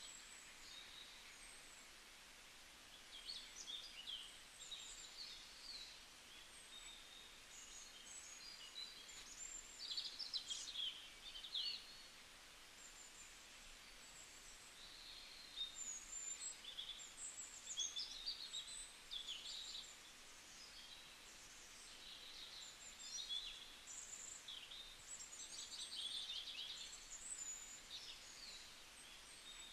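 Faint birdsong: many short, high chirps and twittering calls that come and go in clusters, over a low steady hiss.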